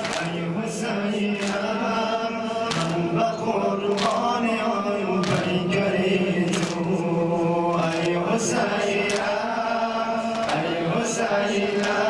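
A group of male mourners chanting a lament in unison, with a steady beat of open-hand slaps on their chests (sineh-zani) about once a second.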